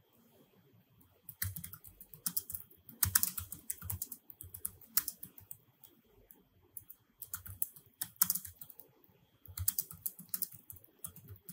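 Typing on a computer keyboard: runs of quick key clicks in bursts of a second or two, with short pauses between them.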